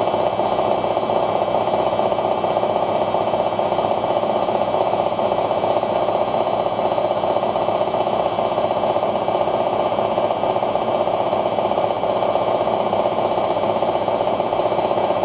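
Hoover DYN9144D3X washing machine on its final spin at 1000 rpm, the drum and motor running steadily at speed with a loud, even whir that neither rises nor falls.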